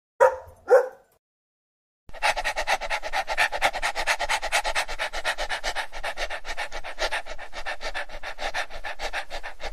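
A dog panting fast and evenly with its tongue out, starting about two seconds in. Before that, near the start, there are two short, loud sounds from the dog.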